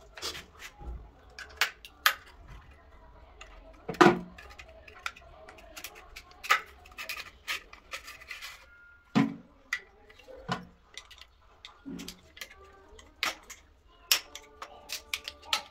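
Irregular clicks, taps and knocks of hard parts being handled, the loudest about four seconds in: hands-on work on a toilet cistern's fill mechanism.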